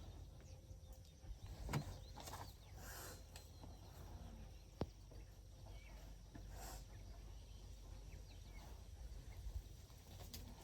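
Quiet outdoor ambience: a steady low rumble with a few faint rustles and one sharp click about five seconds in.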